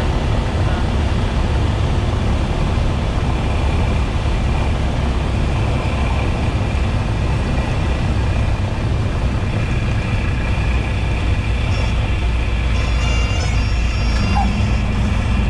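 Steady drone of a Cessna 172S's four-cylinder piston engine and propeller, heard from inside the cabin, loud and even throughout.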